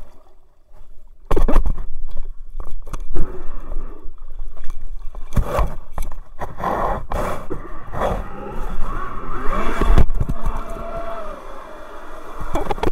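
Irregular knocks and scraping against the jet surfboard's deck-mounted camera as the board is handled, starting suddenly about a second in and loud throughout.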